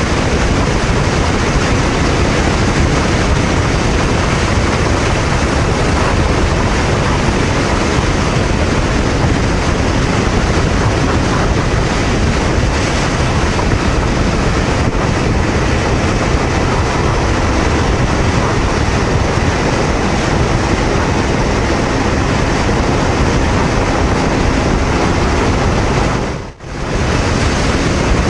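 Wind rushing over the microphone and road noise from a Honda VTR250 cruising at about 120 km/h on an expressway, with a steady drone from its V-twin engine underneath. The sound briefly drops out near the end.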